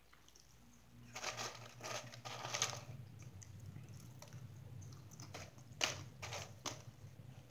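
Eating noises: short crunches and rustles of food being picked from a plastic tub and chewed, a cluster about a second in and a few more later, over a low steady hum.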